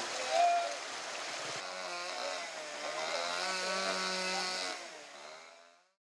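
Chainsaw engine running with a wavering pitch over the rush of a mountain stream, fading out near the end.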